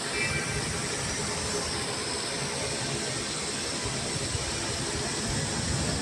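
Steady rushing and rumbling cabin noise inside an Airbus A330-343 airliner, from its Rolls-Royce Trent 700 engines and the airflow. A faint tone rises over the last couple of seconds.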